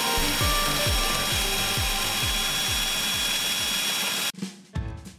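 A 20V cordless drill running steadily with a whine, held against plaster-filled mold boxes to shake air bubbles out of the wet plaster, over background music. The drill cuts off suddenly about four seconds in, leaving the music.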